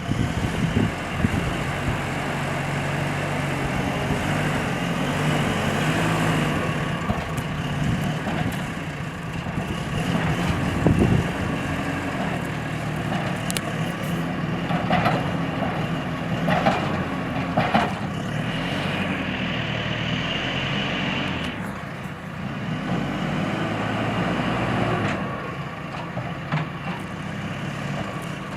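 Heavy construction machine's engine running, its pitch shifting up and down as it works, with a few clanks and knocks in the middle.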